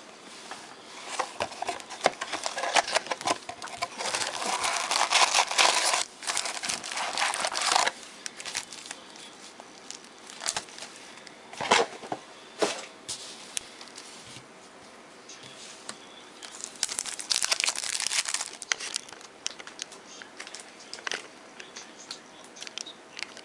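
Plastic shrink wrap being torn off a box of trading cards and crumpled: dense crinkling for several seconds at the start and again for a couple of seconds later on, with scattered sharp crackles and rustles between.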